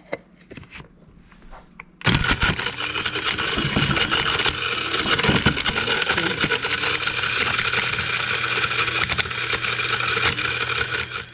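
Electric blade grinder switching on about two seconds in and running steadily, grinding chaga pieces into powder, the pieces knocking about in the first few seconds of grinding. It stops right at the end.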